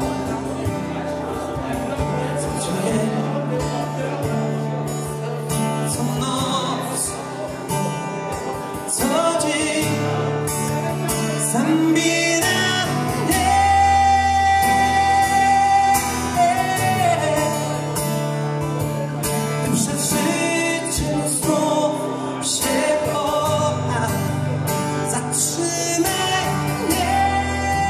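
Male singer performing a song live, accompanying himself on a strummed acoustic guitar.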